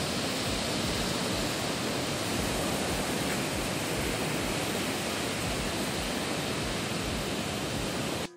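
Steady, even rushing noise of running water that cuts off suddenly near the end.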